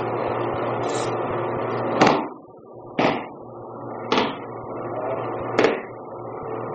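Four sharp slaps on a padded dojo mat spread over about four seconds, from aikido throws and breakfalls, over a steady background hum.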